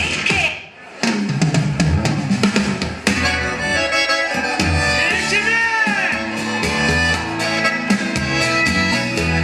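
Music with a drum beat and deep bass played through an active speaker box under test. It drops out briefly about half a second in and the beat comes back about a second in.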